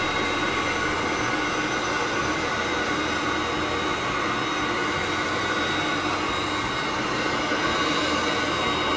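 Steam locomotive heard from inside its cab while it rolls slowly: a steady hiss and hum with several held tones.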